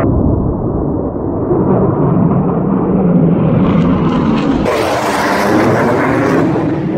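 Jet noise from a low-flying F-15 Eagle fighter: a deep rumble that grows brighter as the jet approaches. About two-thirds in it turns suddenly into a harsh, full-range blast as the jet passes overhead, with a falling pitch.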